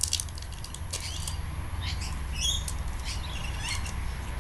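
Crinkling and crackling of a Starburst chew's wrapper being worked open, with a couple of short high squeaks about halfway through, over a steady low hum.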